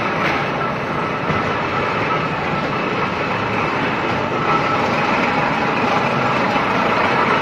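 Brick-making machinery running: a steady, unbroken mechanical din with a faint clatter and hum.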